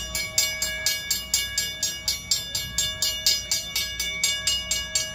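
Background music with a fast, steady beat of about four strokes a second over held tones.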